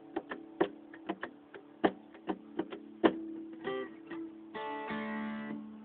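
Acoustic guitar played solo in a folk-blues style: single picked notes over ringing bass notes, then a full chord about four and a half seconds in that rings out and fades near the end.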